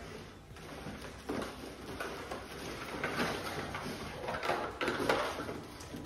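Cardboard box and packaging being handled: uneven rustling and scraping with a few light knocks as vacuum parts are set into the box and lifted out.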